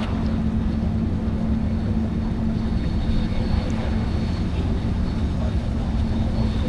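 Great Lakes freighter's diesel engines running steadily: a constant low drone with an even hum.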